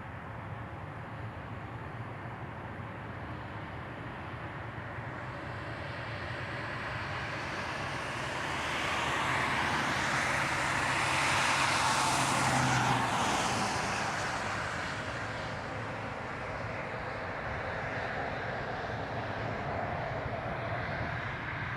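Jet airliner engines at takeoff power on the runway. The noise swells to a peak about ten to thirteen seconds in, then fades as the aircraft passes.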